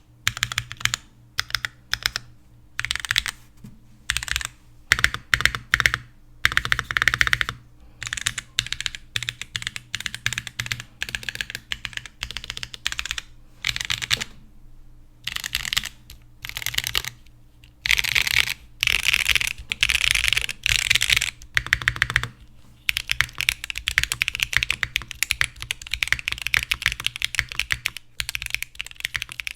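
Custom mechanical keyboard being typed on: a Mode Sonnet with an aluminium top, polycarbonate bottom and POM plate, Gateron Beer light tactile switches and GMK Grand Prix keycaps. Bursts of keystrokes with short pauses between them, turning into steady, fast typing about three quarters of the way through.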